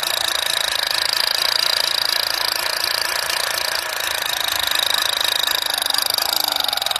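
Battery-powered plastic toy gun playing its electronic rapid-fire sound effect: a continuous fast rattle with a high electronic tone, its pitch sagging slightly near the end.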